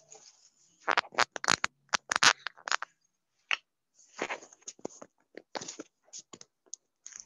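Handling noise of a phone being picked up and carried: fingers scratching and knocking against the phone near its microphone. The scratches and knocks come thickest between about one and three seconds in, then sparser to the end.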